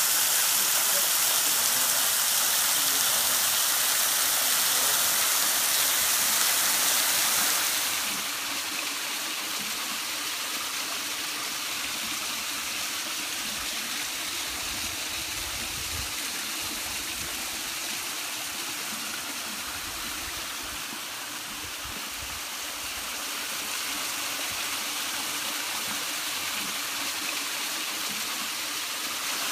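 Small waterfall spraying and splashing onto rock, a steady hiss of falling water. About eight seconds in it turns quieter and duller, as if heard from farther off.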